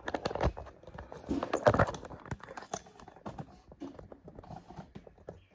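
Rapid irregular clicking and knocking of tools and hardware being handled against wooden furniture parts. It is densest in the first two seconds, with a louder knock just before two seconds in, then thins to scattered ticks.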